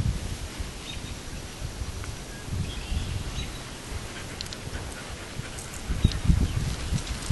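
Outdoor ambience: irregular low thumps and rustling, louder near the end, with faint bird chirps.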